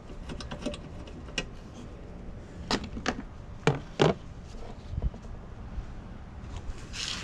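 Metal hand tools and loose bolts clinking and knocking as they are handled and set down, a scatter of short sharp taps with the clearest four close together in the middle, over a low rumble.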